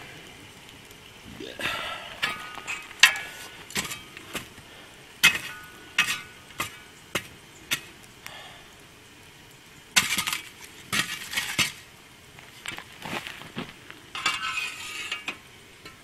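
Metal shovel scraping and scooping hot coals and ash from a campfire, with sharp metallic clinks and knocks as the blade hits stones and the camp oven. Longer scrapes come about two seconds in, around ten seconds, and near the end, between scattered single knocks.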